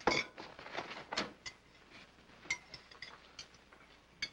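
Plates and cutlery clinking at a breakfast table: a plate set down on the table at the start, then a scattering of light knife-and-fork clinks against china.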